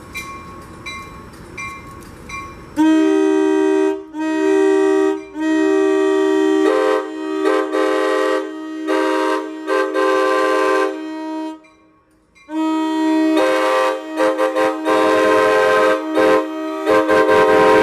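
Train horn blowing a series of blasts, several notes sounding together as a chord. It starts about three seconds in with two shorter blasts, then long held blasts with a brief break near the middle.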